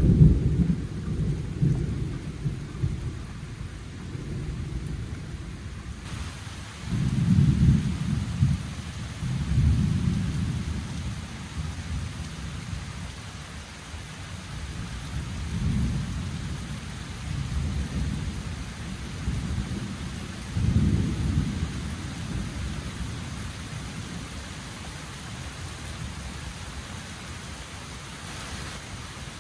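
Thunder rumbling in long rolling peals, swelling and fading about every two to five seconds and dying down in the last third. Under it is a steady hiss of rain, which gets louder about six seconds in.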